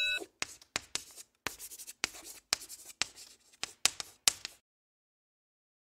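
Chalk writing on a blackboard: a run of quick scratches and taps that stops about four and a half seconds in.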